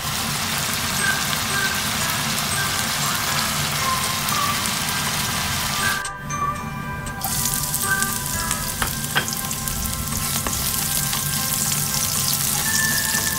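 Food sizzling as it fries in a hot wok: ground beef with diced vegetables, then chopped onion in oil. The sizzle drops out briefly about six seconds in. Light background music with short tinkling notes plays underneath.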